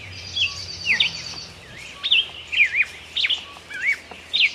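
Small songbirds calling in woodland: many short, sharp whistled chirps that dip and rise in pitch, overlapping one another, with a high rapid trill for the first second and a half.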